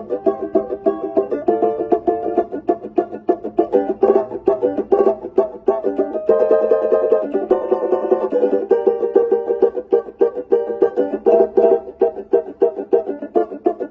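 Banjo being played solo: a fast, continuous stream of plucked notes.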